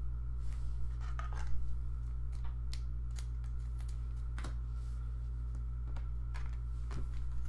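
Sparse light clicks and scrapes of trading cards being handled and sorted, over a steady low electrical hum.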